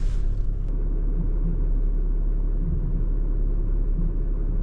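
Tow truck engine running, a steady low drone.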